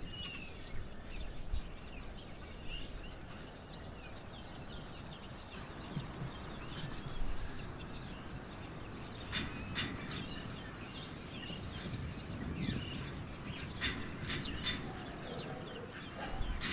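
Outdoor background noise with small birds chirping now and then, joined in the second half by scattered sharp clicks and rustles.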